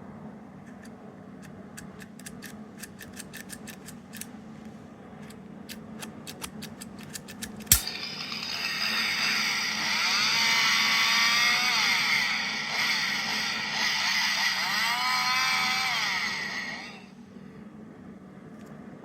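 A run of light clicks, then a sharp click and a recorded sound effect played through a small capsule toy's speaker for about nine seconds, with repeated rising-and-falling tones, cutting off suddenly.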